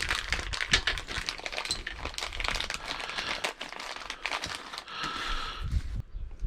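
Plastic packaging crinkling as it is handled and opened, an irregular crackle that eases off near the end.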